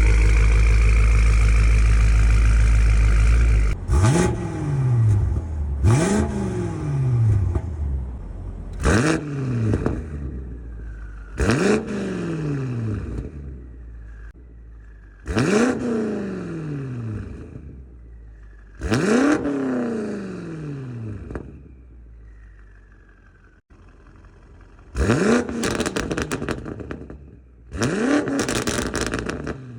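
BMW F90 M5's twin-turbo V8 with catless downpipes and a full titanium exhaust, held at steady revs for the first few seconds and then revved in about eight sharp blips, each pitch falling back as the revs drop. The last two blips end in a rapid crackling on the overrun.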